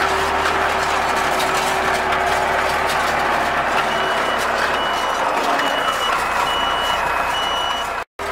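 Tractor and CLAAS Rollant 46 round baler running steadily while picking up freshly cut grass, with a mechanical rattle of the pickup and drive. About four seconds in, the baler's control box starts a series of short, high beeps, about one a second, as its red lamp lights.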